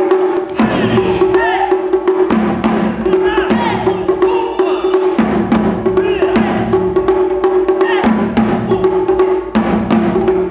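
Japanese taiko drums played with wooden sticks: a large drum on a tall stand and a smaller roped drum struck in quick, driving patterns, over a steady held tone.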